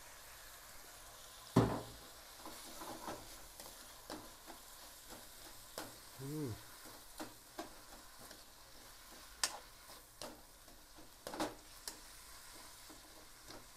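Bean sprouts and vegetables stir-frying in a wok: a faint steady sizzle, with the spatula scraping and knocking against the pan at irregular moments, the loudest knock about a second and a half in.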